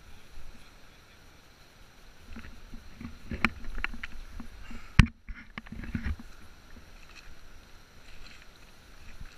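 Shallow river water splashing and gurgling over stones close to the microphone, surging unevenly, with one sharp click about five seconds in.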